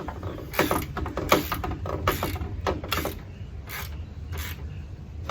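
Irregular metallic clicks, scrapes and rattles of a steel window guide rail being worked back into place inside a pickup's door, some coming in quick runs.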